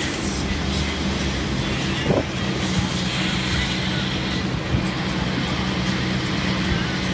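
Inboard engine of a wake boat running steadily, a low hum under the rush of the churning wake water.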